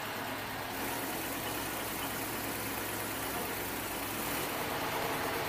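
Machinery running steadily with an even hiss. A low engine hum comes in about a second in and drops out near the end.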